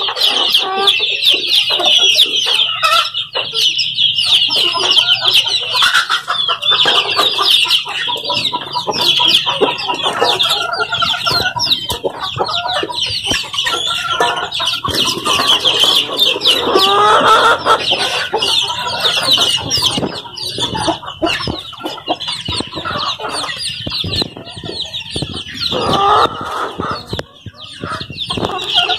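A flock of native chickens clucking as they feed, over constant high-pitched peeping that sounds like chicks. A louder, rising call stands out a little past the middle.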